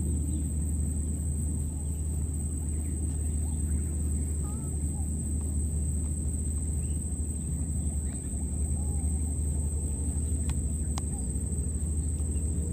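Outdoor ambience: a steady low rumble under a constant high-pitched whine, with a few faint scattered chirps.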